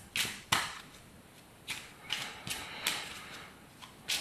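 A deck of oracle cards being shuffled by hand: a run of irregular crisp snaps and flicks, with short pauses between them.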